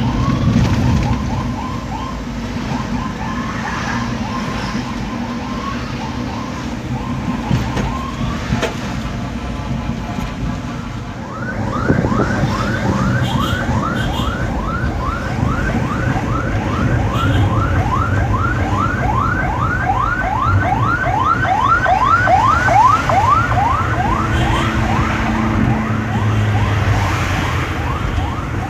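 Escorting ambulance's siren over the road noise of a moving vehicle. About a third of the way in it switches to a fast yelp: quick rising sweeps, about two or three a second.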